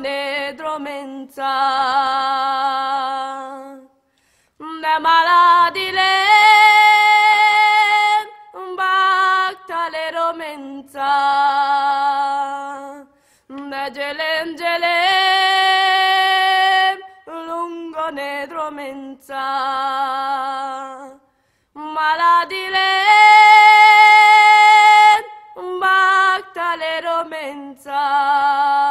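A woman singing a slow Romani song unaccompanied, in long held phrases with a wide vibrato and short pauses between them.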